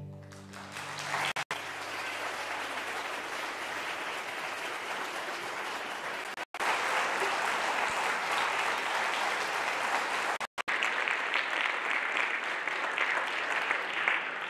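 Audience applauding at the end of a string orchestra piece, the strings' last chord dying away just at the start. The clapping holds steady, cut by three brief dropouts in the audio.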